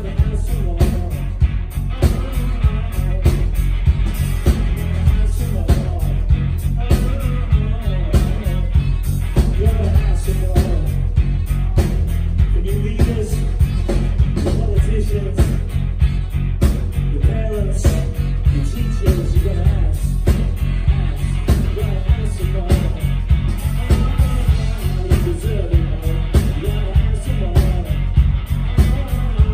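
Rock band playing live: drums on a steady beat, electric guitars and bass guitar, with a singer's voice over them.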